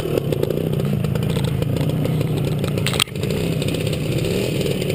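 Classic trials motorcycle engine running at low revs through a section, its pitch wavering slightly with small throttle changes. A single sharp knock about three seconds in.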